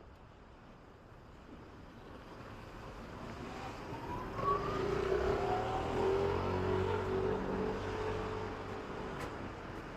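A motor vehicle's engine approaching and driving past, swelling to its loudest about halfway through with a slight rise in pitch, then fading away.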